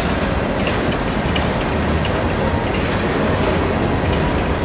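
Empty grain hopper cars of a freight train rolling past: a steady rolling noise of steel wheels on rail, with faint, irregular ticks.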